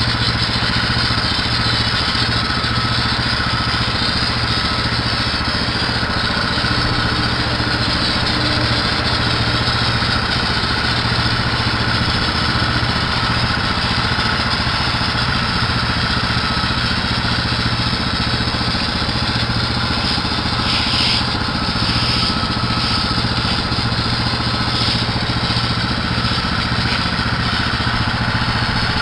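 A small gasoline engine running steadily at a constant speed.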